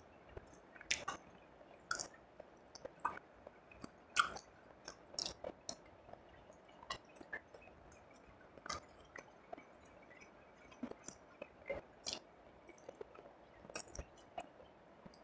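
Close-miked chewing of fried rice and fried fish: irregular wet mouth clicks and smacks.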